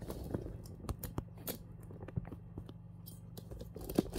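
Plastic lickable cat-treat pouch crinkling and clicking in quick irregular snaps as it is handled, the loudest snap near the end, over a steady low hum.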